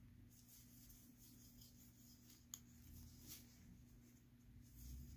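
Near silence: a faint steady hum, with soft, irregular ticks and rustles of a crochet hook working yarn, and one sharper click about two and a half seconds in.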